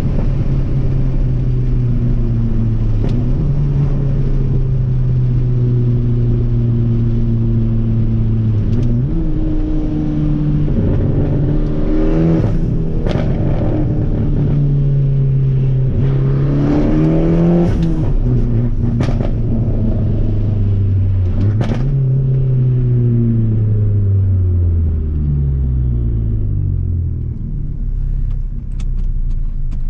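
Fiat Abarth 500's turbocharged 1.4-litre four-cylinder engine heard from inside the moving car with the windows down, over steady wind noise. Engine speed holds and then drops sharply at several gear changes, and winds down as the car slows near the end, with a few sharp clicks along the way.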